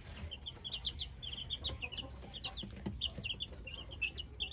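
Young chickens chirping: a continuous stream of short, high peeps, several a second.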